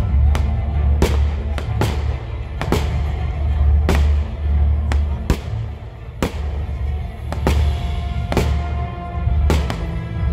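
Fireworks display: aerial shells bursting with about a dozen sharp bangs, roughly one a second, over loud music with a heavy bass.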